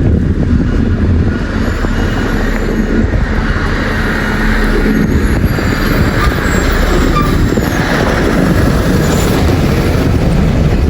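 Heavy road-construction machinery, a road roller and a motor grader, running with a steady loud diesel rumble.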